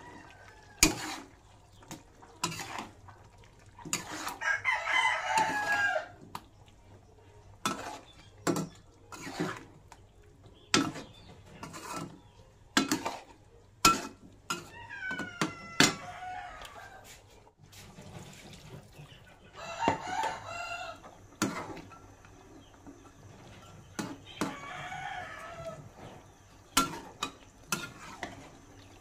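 A cooking utensil knocks and scrapes against a metal wok as a stew is stirred, giving repeated sharp clinks. Between them a rooster crows several times, about four seconds in, near the middle and later on, and chickens cluck.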